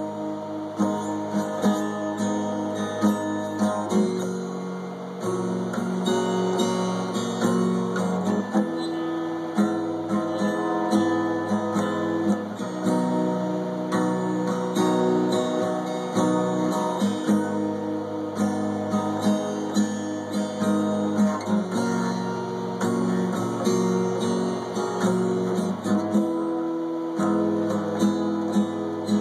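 Acoustic guitar strummed through a repeating chord progression as an instrumental intro, recorded on a phone.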